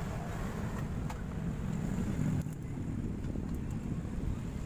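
Steady low rumbling background noise, with a few faint clicks from handling the amplifier board and multimeter.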